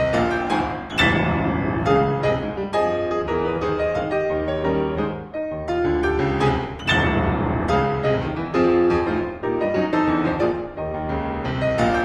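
Solo piano playing a dissonant ragtime piece in dense, loud chords, with many hard-struck attacks in quick succession.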